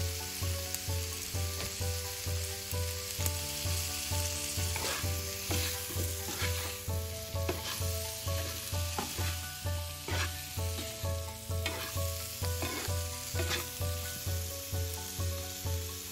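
A spatula stirring and scraping green tomato wedges around a frying pan of hot oil and spices, with scrapes coming thickest between about four and fourteen seconds in. Under it runs background music with a steady low beat about twice a second.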